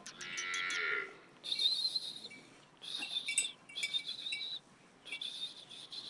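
A goat bleats once at the start, a short call that bends in pitch. After that a high, thin chirping comes in four short spells of under a second each.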